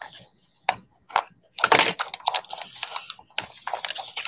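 Packaging being opened and handled by hand: a few short clicks and rustles, then from about a second and a half in a dense crinkling and crackling like wrapping being pulled apart.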